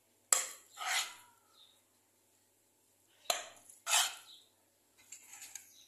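A metal spoon clinks sharply against a frying pan and scrapes filling out of it, twice: each knock is followed by a short scrape.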